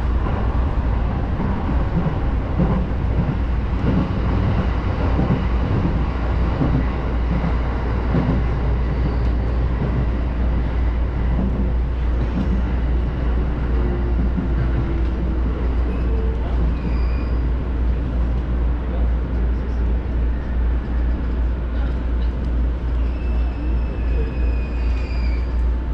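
Cabin noise of a JR Musashino Line electric commuter train under way: a steady low rumble with running noise on top. Near the end comes a faint falling whine as the train slows into a station.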